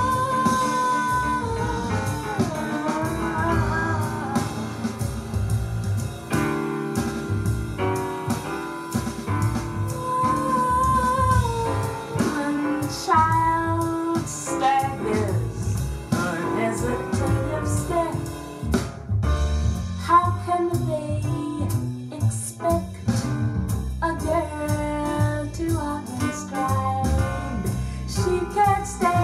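A recorded song played through a Wavebourn Gubernator-71 single-ended valve amplifier and Ruark Solstice speakers: a singer with vibrato over guitar, bass and drums.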